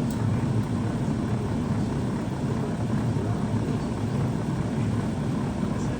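Pot of soup boiling on the stove: a steady low rumble with a few faint ticks near the start and end.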